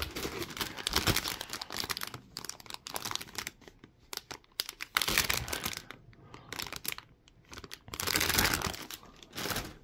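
Clear plastic bags holding model kit runners crinkling as they are handled and lifted out of a box. The crackles come in irregular spells with short pauses, with a louder stretch about eight seconds in.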